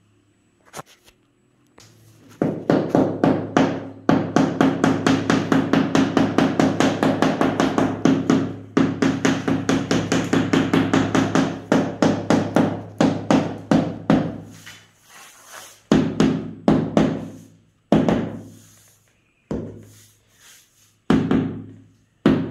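Rubber mallet tapping a floor tile down into its wet mortar bed to set it level. A fast, even run of taps, about five a second, starts a couple of seconds in and lasts about twelve seconds. It is followed by slower single taps near the end.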